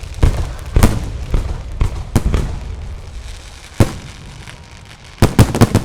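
Fireworks display: aerial shells bursting with loud, sharp bangs at irregular intervals, then a quick volley of four or five bangs near the end.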